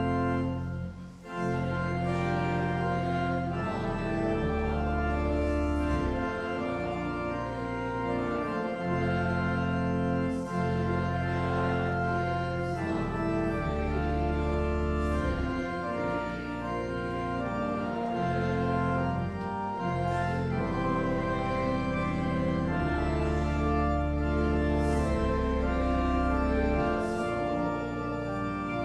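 Church organ playing a hymn in slow, sustained full chords over a deep bass line that changes every couple of seconds, with a brief break between phrases about a second in.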